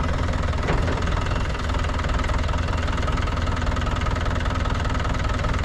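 Mahindra tractor's diesel engine idling steadily.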